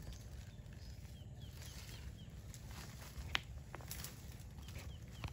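Komodo dragon feeding on a goat carcass over stony ground: scattered clicks and crunches as it bites and pulls, with one sharp crack about three seconds in. A steady low rumble underlies it, with faint short bird chirps.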